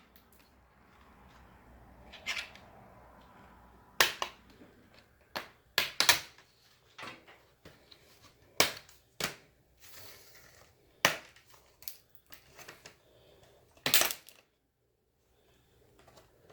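Plastic screen-bezel clips of a Dell Inspiron 14 3421 laptop clicking and snapping loose as the bezel is pried off with a screwdriver. About a dozen sharp clicks come at irregular intervals.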